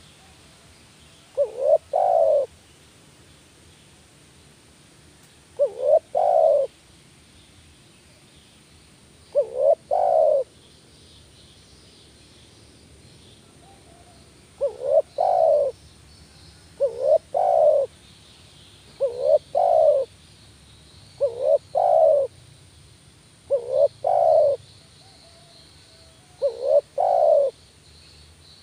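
Spotted dove cooing: nine separate calls, each a short note followed by a longer one that falls slightly in pitch, repeated every two to four seconds. Faint high chirping underneath.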